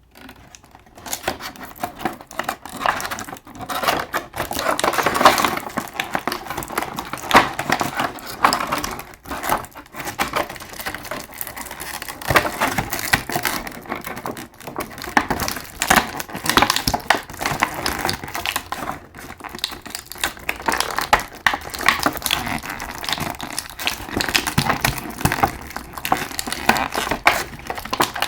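Plastic packaging crinkling and crackling as it is handled, a continuous rustle with many small clicks.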